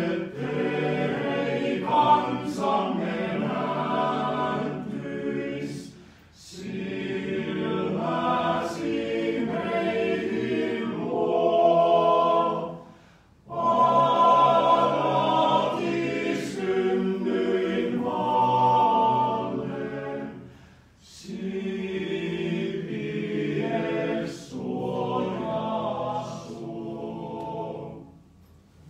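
Male voice choir singing a cappella in four phrases with short pauses between them; the last phrase dies away near the end.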